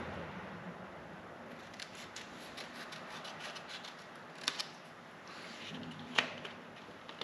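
Faint rustling and snipping of a paper template being handled and trimmed with scissors, with two sharp clicks about four and a half and six seconds in.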